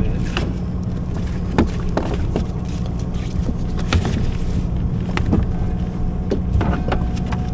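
A steady low motor hum, with scattered sharp clicks and knocks over it.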